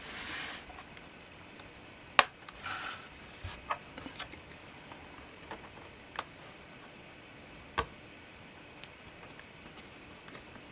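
Scattered clicks and light knocks of hands working on a laptop's plastic case and parts, with two short scraping rustles. The loudest is a sharp click about two seconds in.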